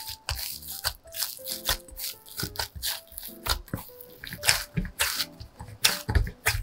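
Bread dough kneaded by hand in a glass bowl: irregular sticky squishes and soft slaps as it is pressed, lifted and pushed against the glass, several a second, over soft background music.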